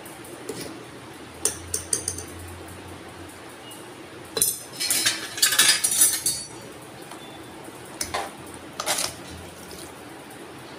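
A metal spoon clinking and scraping in a metal pot of soaked sago pearls and water: a few clinks early, a longer stretch of stirring and scraping around the middle, and more clinks near the end.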